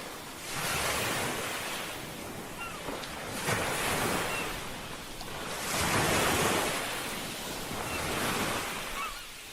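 Ocean waves washing onto a shore, each surge swelling and fading about every two to three seconds, with a few faint short chirps between them.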